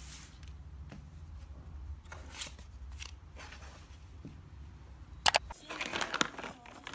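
Soft rustling of cloth gingham placemats being handled over a low steady hum. A little after five seconds in, a foil-lined paper bag is torn open with sharp crinkling, the loudest sound here.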